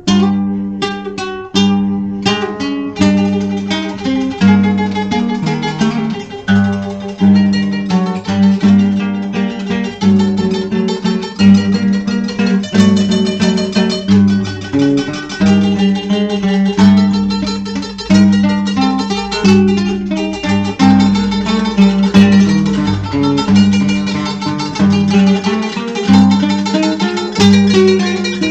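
Slow dark-folk instrumental on plucked strings: a continuous run of picked notes, each struck and left to fade, over a steady low held note.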